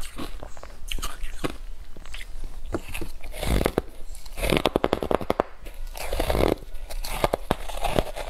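Close-miked crunching of ice chunks coated in matcha powder, being bitten and chewed. About four and a half seconds in, a bite brings a quick run of sharp cracks, followed by more crunching as the ice is chewed.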